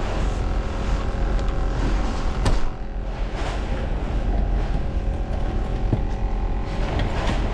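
Steady low engine hum, with a few sharp clicks over it, the loudest about two and a half seconds in. The later clicks come as the latches of a hard plastic cooler box are worked open.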